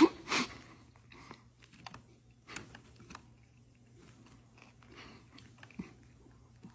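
Faint, scattered crinkling of a foil wrapper and chewing as a foil-wrapped burrito is handled and bitten into, heard as small irregular clicks and crackles. A brief louder sound comes right at the start.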